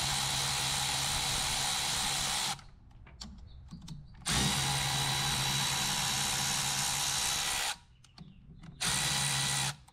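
Power drill spinning a socket on an extension to back out an alternator's case bolts. It runs in three steady bursts: the first stops about two and a half seconds in, the second runs from about four to nearly eight seconds, and a short third comes near the end.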